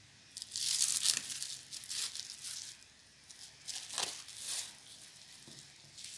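Plastic cling film being peeled and pulled off a wedge of ash gourd, crackling and crinkling in several bursts, fainter near the end.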